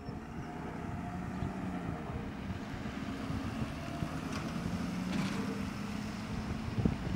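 Pickup truck driving past with a steady low engine hum, over wind noise on the microphone.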